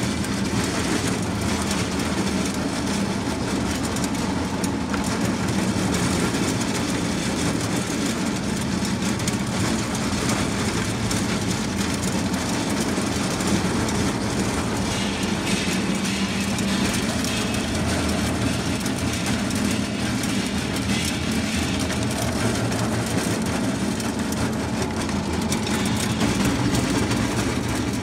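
Ring die feed pellet mill running steadily under load while it extrudes feed pellets: an even, loud mechanical drone.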